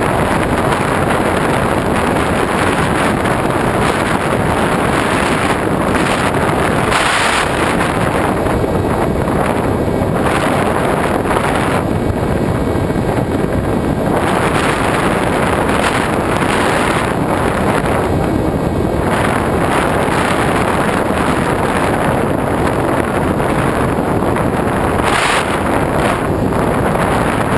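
Loud, steady rush of airflow over the microphone of a GoPro carried on an RC foam glider in flight, swelling briefly about seven seconds in and again near the end.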